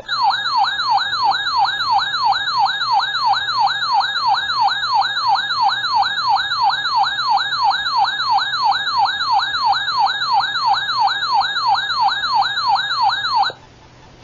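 Electronic siren-style alert tone that drops in pitch and snaps back up, about three times a second, and cuts off suddenly near the end. It announces a severe thunderstorm warning.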